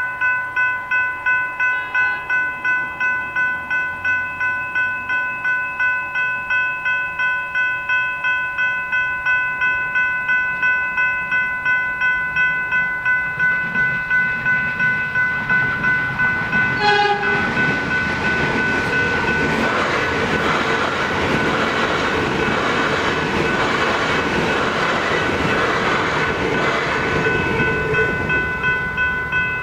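Level crossing electronic bells (General Signals Type 3 E-Bells) ringing in rapid, even strokes while a train approaches and passes at speed. A short horn blast comes about halfway through, and the train's running noise then builds over the bells. The bells and the train noise stop near the end as the crossing clears.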